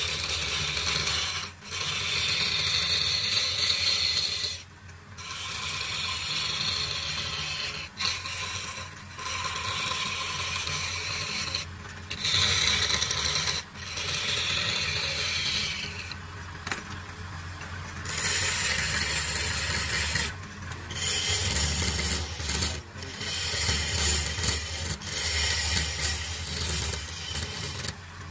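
Wood lathe turning a small wooden vase while a hand-held turning chisel cuts it: a hissing scrape of shavings in repeated passes, broken by short pauses, over the steady low hum of the lathe.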